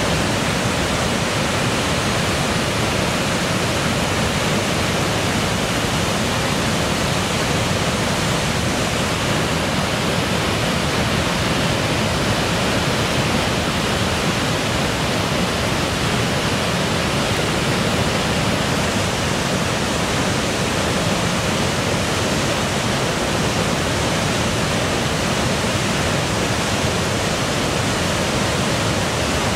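Kosterville Falls on the Moose River, a wide river waterfall in heavy flow, with water pouring over a rock ledge into the pool below. It makes a steady, dense rush that stays at the same level throughout.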